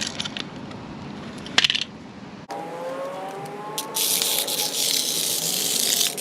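Light metallic clicks and a sharp knock about a second and a half in. Then, after an abrupt change, a small electric motor whines, rising and falling in pitch, joined about four seconds in by a loud steady hiss.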